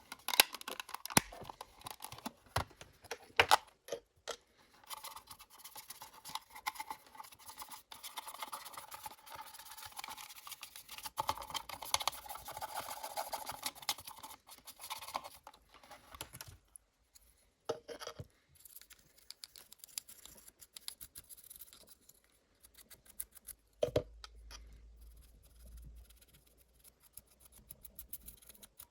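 Small clicks, taps and scraping from a cassette player's plastic and metal parts being worked on by hand with small tools. A longer stretch of scraping comes about five seconds in, followed later by a few single sharp clicks.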